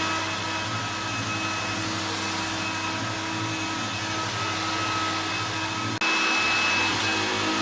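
1968 Hoover Convertible upright vacuum cleaner running loud and steady, its motor hum topped by a high whine. About six seconds in the sound changes suddenly, growing a little louder and shriller.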